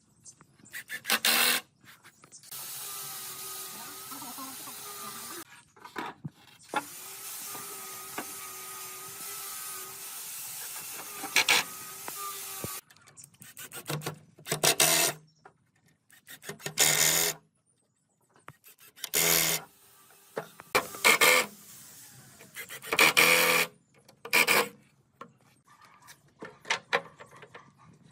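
Short rubbing strokes on wood, each about half a second to a second long, coming in irregular groups, typical of wood being abraded by hand. Between them come two longer stretches of steady, quieter noise with a faint wavering hum.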